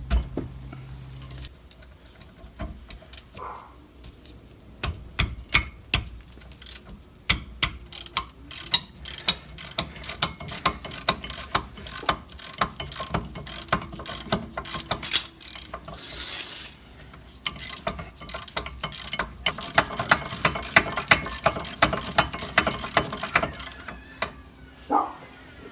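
Hand ratchet clicking in quick runs of short back-and-forth strokes, breaking loose and backing out the two 14 mm rear brake caliper bracket bolts.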